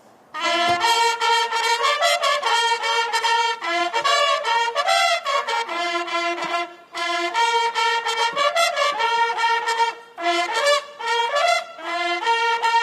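Military brass playing a lively tune in quick, short notes, several notes sounding together. It starts about half a second in and breaks off briefly twice, about 7 and 10 seconds in.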